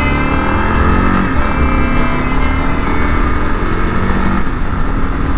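Single-cylinder engine of a 2022 Kawasaki KLR 650 running steadily while the motorcycle cruises at road speed, with wind rush on the microphone.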